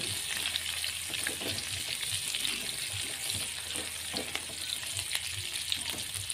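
Sliced garlic, shallots and red chilies sizzling in hot oil in a wok, stirred with a spatula that scrapes and taps against the pan now and then.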